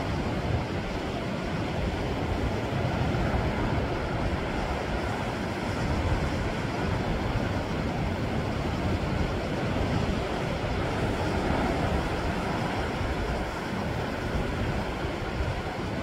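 Sea waves washing against shore rocks: a steady wash of surf with a low rumble and no single breaking crash standing out.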